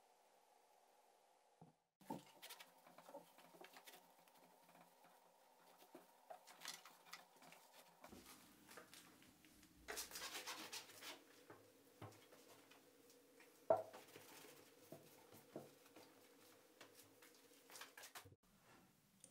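Near silence, with faint fizzing and crackling from spray foam cleaner breaking down on a steel ball screw, scattered with small ticks.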